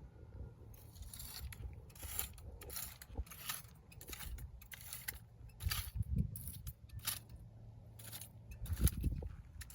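A rake scraping over dry ground in repeated short strokes, about two a second, with a few low thumps.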